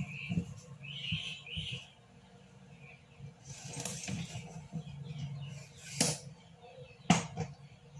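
Someone rummaging among stored bags and boxes to fetch a bag: scattered rustling and handling noises. Near the end there are two sharp knocks about a second apart.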